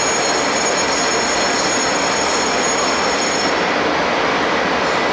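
Stationary Taiwan Railway commuter trains standing at the platform with their onboard equipment running: a steady loud rushing hum, with a high whine of several thin tones that stops about three and a half seconds in.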